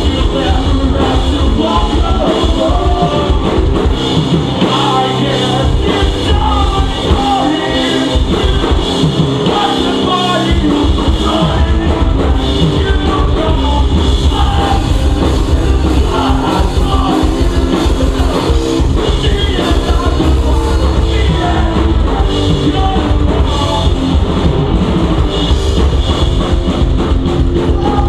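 Pop punk band playing live, with drum kit, distorted electric guitars and singing. The bass and kick drop out briefly around five seconds in and again around ten seconds in.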